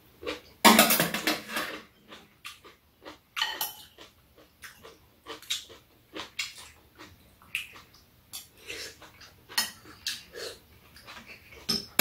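Metal chopsticks and spoons clicking and scraping against bowls and a metal tray as two people eat, in scattered taps. There is a louder, longer noise about a second in and another at the very end.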